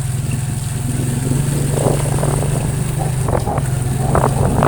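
Motor vehicle engine running steadily: a low drone with a fast, even pulse.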